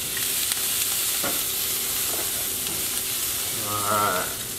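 Thin-sliced onions sizzling in a hot skillet while a spatula stirs them, with a few light clicks of the spatula against the pan. A short pitched sound comes near the end.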